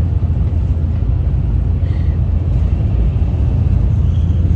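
Cabin noise of a Shinkansen bullet train running, heard from inside a passenger car: a steady, loud low rumble.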